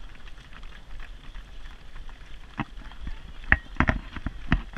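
Footsteps of many runners on a road and the rattle of a pushed running buggy, with a few sharp knocks standing out in the second half.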